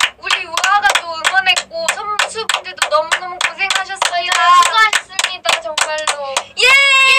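Two women clapping their hands in a steady rhythm while singing along, ending with a long held high sung note near the end.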